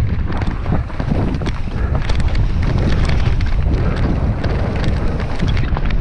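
Wind buffeting the microphone on a mountain bike descending a downhill trail, with a heavy low rumble and frequent sharp clicks and rattles from the bike over rough ground.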